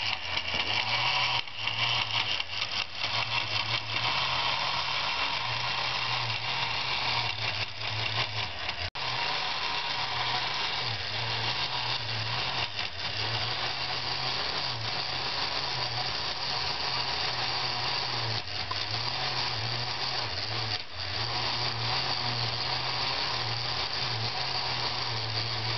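Meccano model skid ride running: its small electric drive motor and gearing whir steadily as the cars are pulled round the track, with a brief cut-out about nine seconds in.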